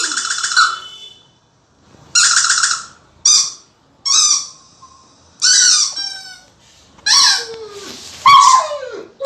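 A dog's squeaky toy squeezed over and over, giving about seven short, high squeaks. Near the end a German Shepherd howls along in falling notes.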